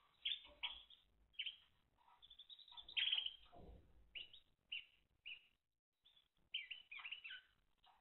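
Timbrado canary giving a series of short, sharp chirps and quick runs of notes, some in quick bursts, with gaps between them. A dull thump about three seconds in, the loudest moment, is heard alongside a quick run of notes.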